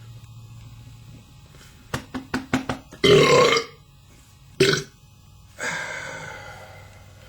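A man belching: a few quick clicks, then a loud half-second belch about three seconds in and a short second one just over a second later. A longer breathy sound fades out near the end.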